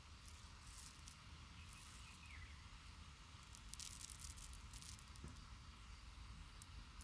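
Faint crackly rustling in short scattered bursts over a low steady hum and hiss, a little busier about four seconds in.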